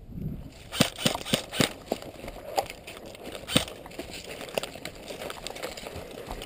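Footsteps through dry grass and fallen leaves, with irregular crackling clicks and rustles of brush and twigs underfoot.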